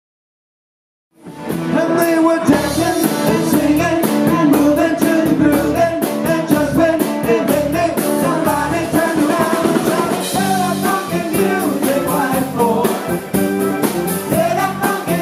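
Silence for about a second, then a rock song with singing, drums and guitar starts suddenly and plays loud with a steady beat.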